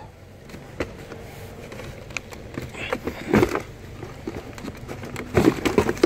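Plastic clicks and knocks from a Toyota RAV4's open glove box being handled by hand, with louder knocks about halfway through and near the end.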